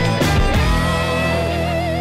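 Rock music with guitar that starts abruptly and loudly, with a held note wavering in pitch in the second half.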